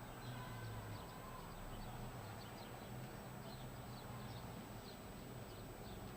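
Quiet room tone: a steady low hum with faint, irregular high ticks a few times a second.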